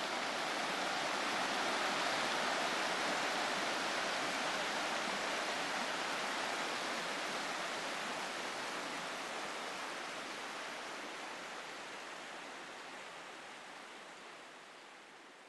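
A river rushing over stones, a steady watery rush that slowly fades out toward the end.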